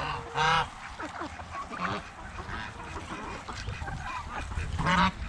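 Domestic geese honking: two loud honks, one about half a second in and one near the end, with fainter calls from the flock between.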